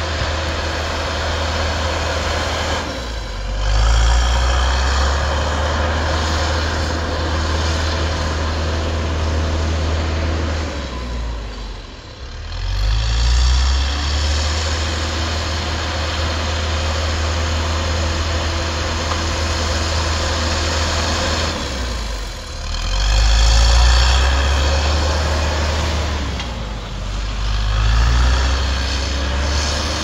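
John Deere backhoe loader's diesel engine running under load while plowing snow. Its note dips and then revs back up four times.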